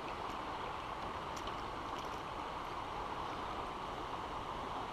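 Water pouring steadily into a small creek from an inflow, an even rushing sound.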